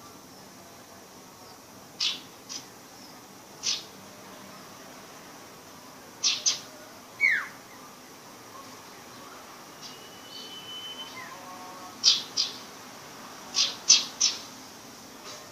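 A young sirpu bird still learning its song gives short, sharp chip calls, about a dozen, scattered and often in pairs. About halfway through it makes one quick falling whistle, and a little later a short level whistle.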